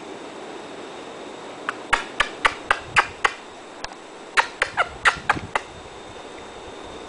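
A puppy playing by the table legs makes a quick run of sharp clicks and taps, about a dozen in two clusters over roughly four seconds, starting a couple of seconds in.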